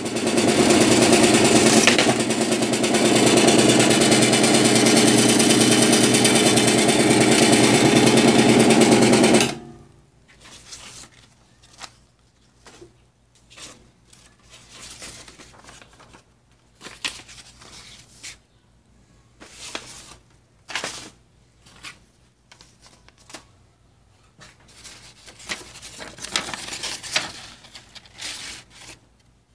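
Martin Yale 1501 desktop paper folding machine running, feeding and folding sheets with a rapid, dense clatter that cuts off abruptly about a third of the way in. After that come scattered rustles of folded paper being picked up and handled.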